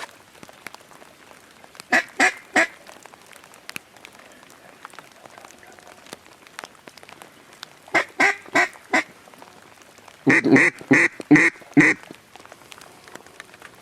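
Mallard-style quacking in three runs: three quacks, then a run of four or five, then a louder run of six or seven near the end.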